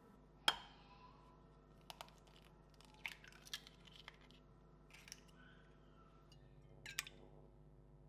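Scattered clinks and taps of kitchen utensils on glass and ceramic: a sharp clink about half a second in, such as a metal spoon striking a glass measuring jug, then lighter taps and another clink near the end, as eggs are cracked into a bowl. A faint steady hum runs underneath.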